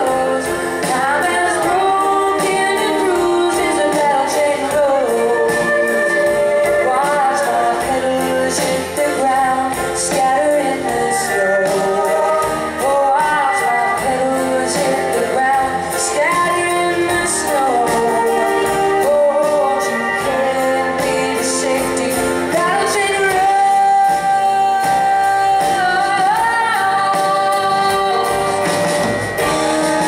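Live band playing a song: a woman singing over electric guitars, bass, acoustic guitar and drums.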